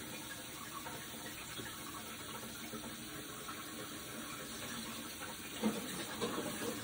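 Kitchen faucet running steadily into a pan of hot boiled eggs in the sink, cooling them under cold water. A few knocks near the end.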